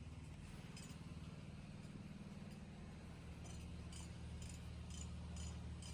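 Steady low hum of an idling engine, typical of construction equipment at a dig site. From about halfway through, light metallic jingling repeats about twice a second, like keys jangling.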